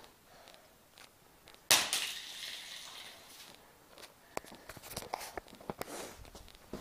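A heavy hammer strikes a Nokia flip phone once, a sharp crack with a short crunching rattle. It is followed by a scatter of light clicks and taps.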